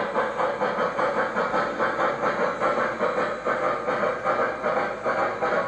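Onboard Proto-Sound 3.0 steam sound of an MTH One Gauge Union Pacific Big Boy 4-8-8-4 model: steady steam-exhaust chuffing in a quick, even rhythm as the locomotive runs smoothly at a low speed step.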